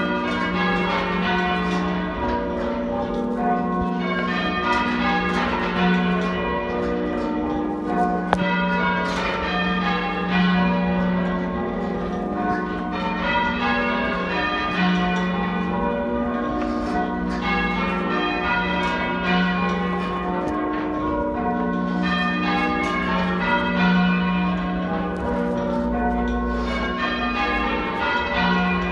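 A ring of church bells rung half-muffled: a continuous, even sequence of bell strikes in which each bell sounds one clear open stroke and one dull muffled stroke in turn. This is the traditional ringing for mourning or remembrance.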